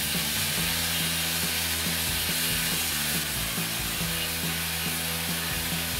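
Homemade belt grinder running while the rounded edge of a wooden insert blank is sanded on the belt, giving a steady rough hiss. Background music plays along with it.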